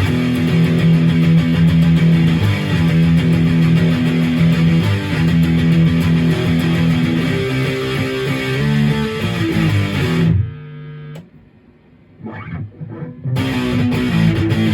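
Maverick Chaos 2 HT electric guitar played through a Yerasov Brown Creature distortion pedal, riffing on low notes. About ten seconds in the riff breaks off for a near-silent pause of two to three seconds with a few faint picked notes, then the riff comes back.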